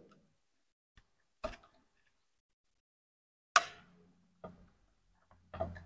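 Scattered clicks and clacks of an electric iron's plastic body and metal sole-plate parts being handled and fitted together during reassembly. The loudest knock comes about three and a half seconds in.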